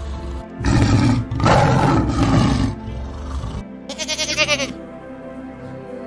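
A tiger growling twice in long, rough growls, then a goat bleating once with a quick quavering pulse about two thirds of the way through, over background music.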